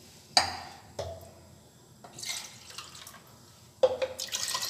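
Water poured from a plastic cup into a pot of sugar, splashing and dripping: two sharp splashes about a third of a second and a second in, and a busier spell of pouring and dripping near the end.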